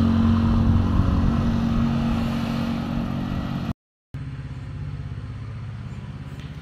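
A vehicle engine running steadily; it cuts off abruptly a little over halfway through, and after a brief silence a lower, pulsing engine hum carries on.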